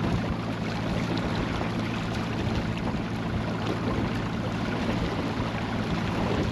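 Small fishing boat under way at trolling speed: an outboard motor running steadily under water and wind noise.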